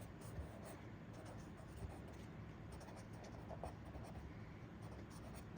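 Faint scratching and small taps of handwriting as the lecturer writes out the next case.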